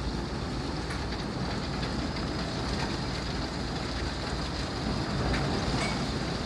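Heavy rain and hail coming down in a thunderstorm, a steady rush with no let-up.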